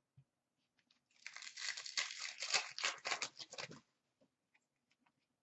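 Upper Deck hockey card pack wrapper being torn open and crinkled. A crackly stretch of rips and crinkles starts about a second in and lasts about two and a half seconds.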